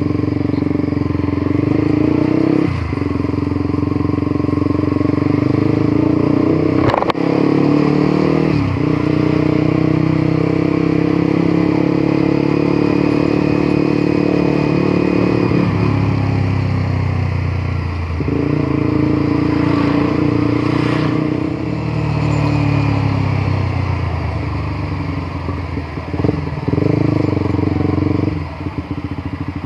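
Honda CBR150R motorcycle engine running under way, holding a steady pitch with breaks at gear changes. It slows with falling revs about halfway through, then picks up again, and drops back in level near the end. A single sharp click sounds about a quarter of the way in.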